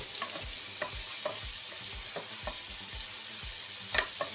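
Sliced onions frying in butter and oil in a pot, a steady sizzle, with scattered clicks and taps of stirring, the sharpest near the end.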